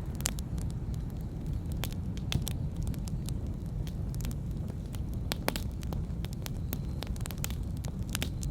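Wood campfire burning: scattered sharp crackles and pops of the burning logs over a steady low rumble, with a faint high whistle coming in near the end.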